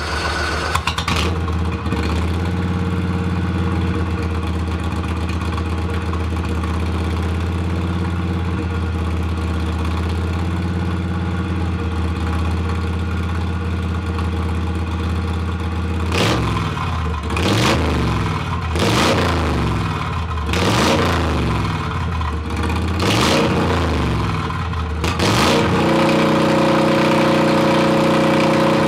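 Racing lawn mower's new V-twin engine with a stainless steel exhaust, idling steadily, then revved in a series of quick blips from about halfway through, and held at a higher steady speed near the end.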